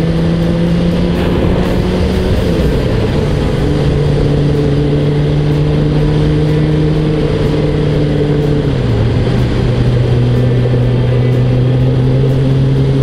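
Kawasaki ZZR400's inline-four engine running at steady cruising revs under wind rush, the engine note dropping twice, about two and a half and nine seconds in.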